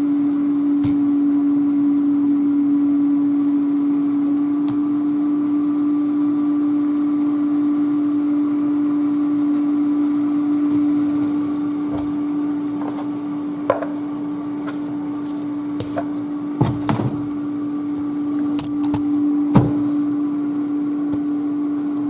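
A steady electrical hum from a kitchen appliance or fan. Several light knocks and clicks come in the second half.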